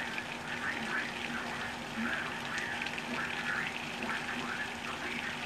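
Heavy hurricane rain pouring down steadily, with a string of short, high calls repeating every fraction of a second over it.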